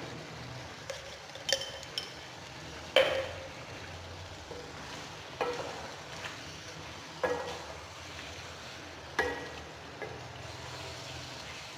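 A wooden spoon stirring a thick potato-and-aubergine curry in a wok-style pan, scraping and knocking against the pan about eight times at uneven intervals, over a faint steady sizzle of the simmering curry.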